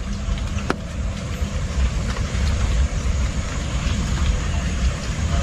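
Steady rain hiss with a continuous low rumble beneath it, and one sharp click about a second in.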